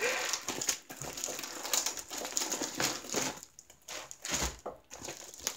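Plastic packaging crinkling and rustling as hands handle a clear bag stuffed with small bags of diamond-painting drills and a torn poly mailer; irregular crinkles that thin out in the second half.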